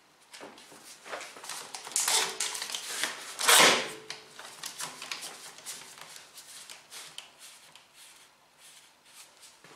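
Steel bar clamps being handled and set across a glued-up timber block: rattling clicks and knocks of the sliding jaws on the bars, with louder metallic clanks about two seconds in and a loudest one about three and a half seconds in that rings briefly, then lighter clicks as the clamps are adjusted.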